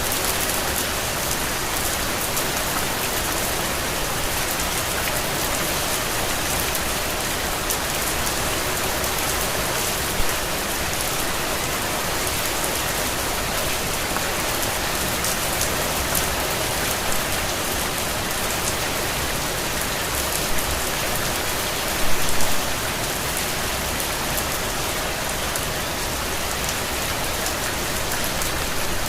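Steady rain falling on a surface, an even hiss of many drops, with a few louder drop impacts about a third of the way in and again near the three-quarter mark.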